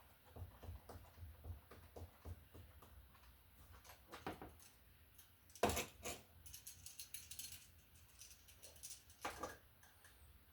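Quiet, scattered clicks and taps of hand tools and electrical parts being handled, with a sharper knock about six seconds in and another about nine seconds in.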